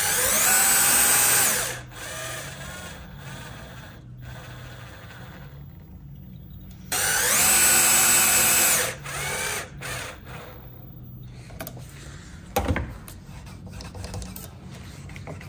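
Cordless drill-driver with a long extension bit driving screws to fasten a recoil-system mounting plate to a gunstock. It makes two runs of about two seconds each, its whine rising as the motor spins up, holding steady, then dropping as it stops. A few short blips of the motor follow the second run.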